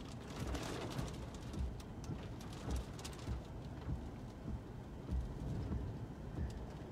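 Rain pattering on a car's windshield, heard from inside the moving car over steady road rumble while the windshield wipers run.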